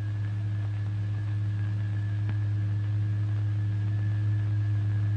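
Steady low hum: a single tone a little above 100 Hz with faint overtones, the driving tone of the vibration generator setting the fluid into vibration, growing slightly louder.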